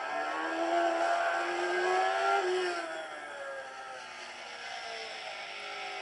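Racing motorcycle engine from an onboard lap video, played through a laptop speaker. The engine note climbs for about two and a half seconds, falls away sharply about three seconds in as the bike slows for a corner, then runs lower and quieter.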